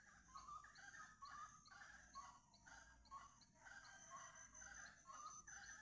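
Saracura wood-rails calling: a faint chorus of loud, raucous repeated notes, several a second, the rail's dawn chorus. A steady high tone and a regular high chirp, about two a second, run behind it.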